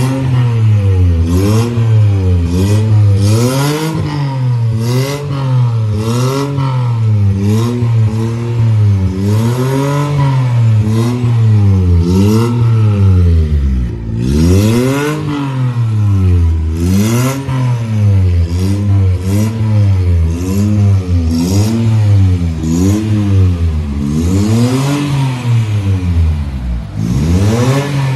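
Suzuki Mehran's small three-cylinder petrol engine being revved over and over, the revs climbing and dropping about once every second or two. Sharp crackles sound between the revs.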